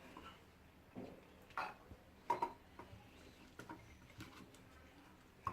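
Scattered light taps and knocks of salted lemons and small glass jars being handled while the lemons are packed in, about half a dozen separate knocks with the loudest a little past two seconds in.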